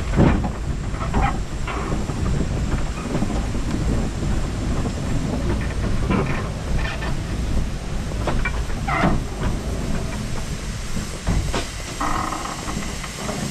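Narrow-gauge steam locomotive No.7 'Tom Rolt' of the Talyllyn Railway running, heard close up from a camera on the engine: a steady low rumble of wheels and motion, broken by irregular clanks and knocks, with a short squeal near the end.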